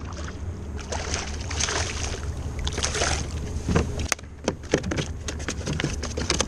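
Water splashing as a speckled trout thrashes at the surface and is brought into a plastic kayak, followed by a run of sharp clicks and knocks in the second half.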